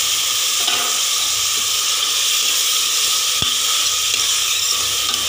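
Chopped tomatoes and onions sizzling in hot sesame oil in a pressure cooker pot, stirred with a steel ladle, as a steady hiss. There is one sharp click about three and a half seconds in, as the ladle knocks the pot.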